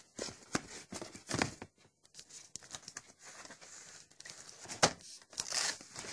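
Hands handling a faux-leather folio and loose paper: rustling and scraping with scattered short clicks, the sharpest a little under five seconds in.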